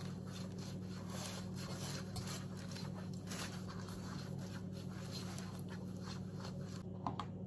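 Pastry brush swept quickly back and forth over the oiled bottom of a metal baking pan: a run of soft rubbing strokes, over a steady low hum.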